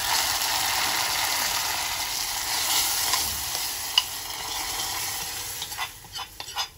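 Dal ladled into the hot aluminium tempering (tadka) pan sizzles loudly at once, rinsing up the leftover fried seasoning as it is swirled, and dies down over about six seconds. A metal clink comes about four seconds in, and a few clicks come near the end as the pan is tipped back into the pot.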